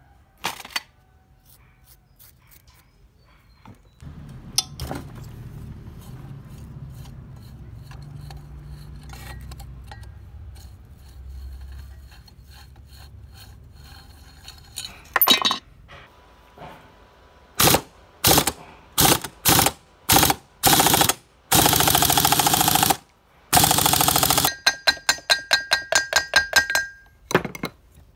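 Pneumatic impact wrench hammering in a string of bursts, short at first and then longer runs, followed by quick repeated blips, as it undoes the flywheel nut on a Honda GX160 engine. Before it, a low steady hum with scattered metallic clicks and one sharp knock.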